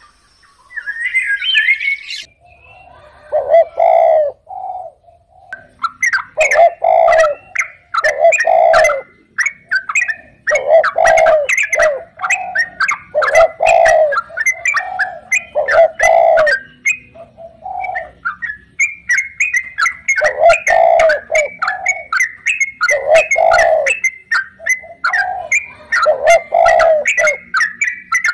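Doves cooing in repeated phrases every two to three seconds, with many small birds chirping between and over the coos.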